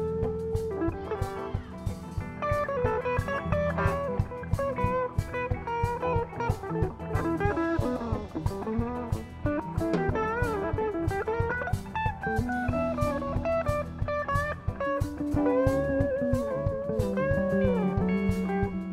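Live blues band playing an instrumental stretch: amplified harmonica playing a bending lead line over electric guitars, bass guitar and drums.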